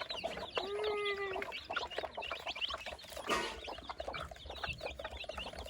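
A flock of chickens clucking, with many short high calls overlapping throughout and one longer, drawn-out call about a second in.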